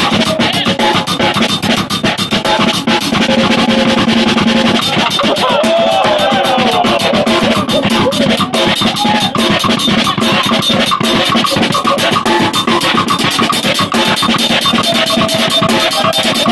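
Live band playing a dense, busy groove: drum kit and hand-struck percussion with rapid hits, under guitar and other pitched instruments.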